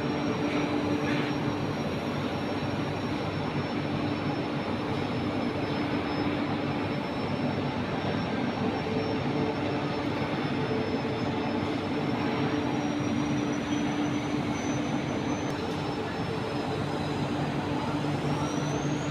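Steady industrial noise in a ferroalloy smelting plant: an even roar of running machinery with a low steady hum and a thin high whine that drifts and rises near the end.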